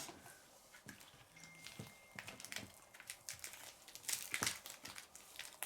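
Slime being squeezed and worked by hand, giving faint irregular crackling clicks.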